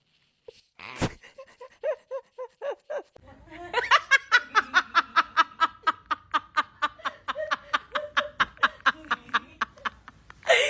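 Laughter: after a few short sounds and a click, a long run of quick, even 'ha-ha-ha' pulses, about four or five a second.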